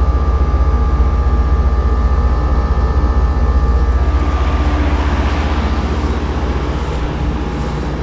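2022 Heil PHJ4 3.5-ton package heat pump running in cool mode: a steady low hum from the compressor and condenser fan, with several steady tones over it. About halfway through, a rushing air sound comes in and the tones fade, and the whole eases a little near the end.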